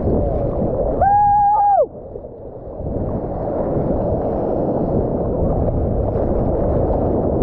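Shorebreak seawater sloshing and churning around a GoPro at wave level, splashing over the lens. About a second in, a brief high held tone drops in pitch at its end, and the water sound then goes quieter for about a second before coming back.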